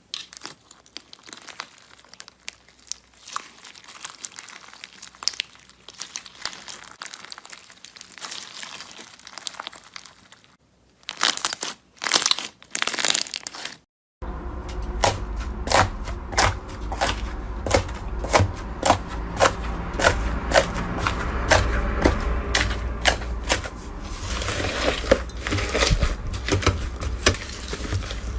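Slime being pressed and squished by hand, giving crinkly crackling and many sharp popping clicks. The clicks are sparse and soft at first, then after about fourteen seconds come louder and denser.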